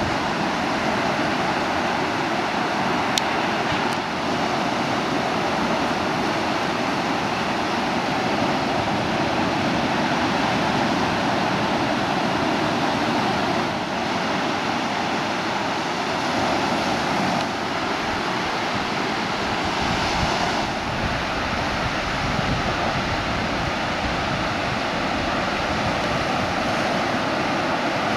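Waves breaking and surf washing ashore, a steady rush, with wind buffeting the microphone.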